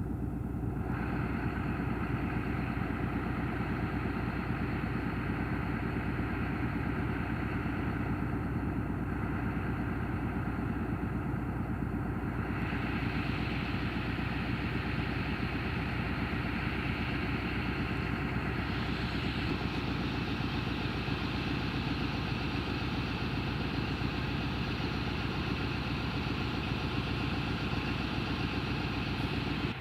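ZCU-20 diesel-electric locomotive engine running steadily and chugging, the sound growing harsher in three steps (about a second in, about halfway, and a little after that) as the throttle is opened for pickup.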